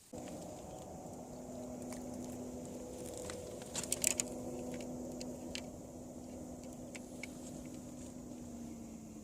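A steady low motor hum with light clicks and rattles over it, a cluster of sharper clicks about four seconds in; the hum starts suddenly and eases off at the end.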